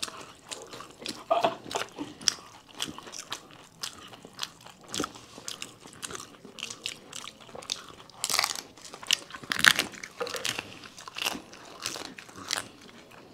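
Crisp panipuri (golgappa) shells being bitten and chewed: irregular crunches and mouth sounds coming one after another.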